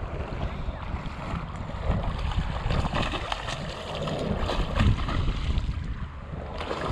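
Wind buffeting the microphone over lapping shallow water, with splashing a few seconds in as a hooked snook thrashes at the surface.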